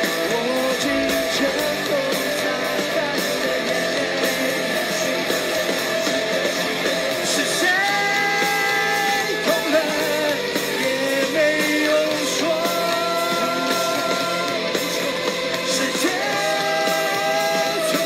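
Rock band playing live with electric guitars and drums while a male singer sings, holding long notes through the second half.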